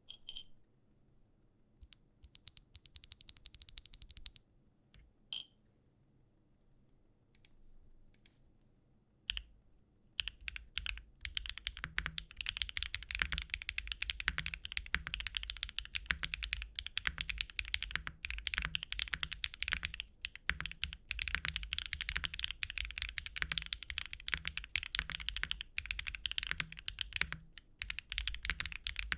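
Mechanical keyboard with HMX Saru V2 tactile switches in a gasket-mounted Tofu65 3.0 being typed on, with a clacky, fairly deep sound. At first come scattered single keypresses and a short quick run of presses, then steady fast typing from about ten seconds in.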